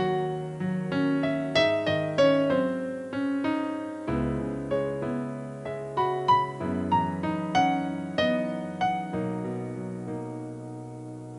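Background piano music: a gentle melody of single notes over sustained chords, thinning out near the end.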